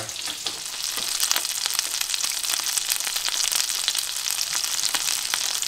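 Butter frying around a filet steak with garlic cloves and thyme in a hot pan: a steady sizzle dotted with many small crackling pops.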